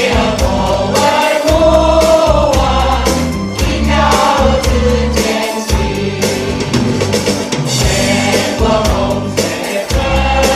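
A large group singing a song together over loud backing music with a strong bass line.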